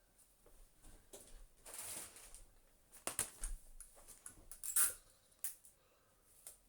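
Scattered small clicks, taps and rustles of objects being handled, with a brief rustle about two seconds in and the sharpest clicks around three and five seconds.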